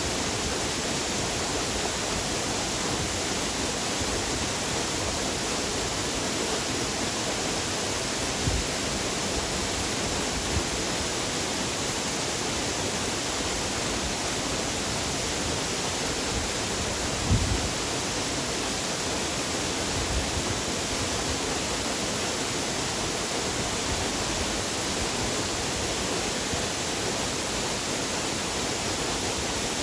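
Waterfall: a steady, unbroken rush of falling water. A few brief low thumps come through, the strongest about 17 seconds in.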